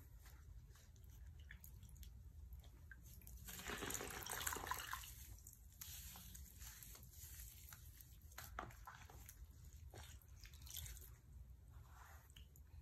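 Hands squeezing and crushing soaked oven-baked floral foam in a bowl of liquid: soft wet squishing, crumbling and dripping, with scattered small clicks, loudest for about a second and a half around four seconds in.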